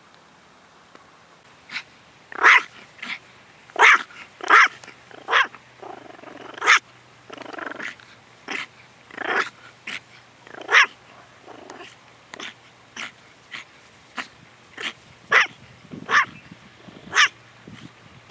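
Long-haired toy Chihuahua barking in a string of short, sharp yaps, roughly one a second, beginning about two seconds in, with low growling between some of them.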